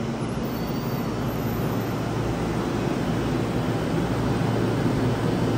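Yokohama Municipal Subway Blue Line train, set 3321 with Mitsubishi IGBT-VVVF drive, pulling into an underground station: a steady low rumble of wheels and running gear that grows slowly louder as the train comes alongside the platform.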